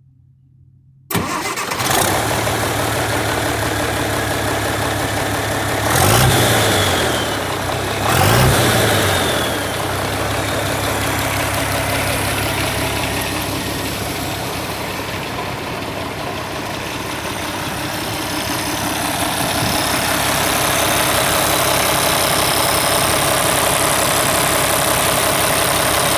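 International Harvester 1086 tractor's turbocharged six-cylinder diesel starting about a second in after an injection pump repair. It is revved up briefly twice, then settles into a steady idle.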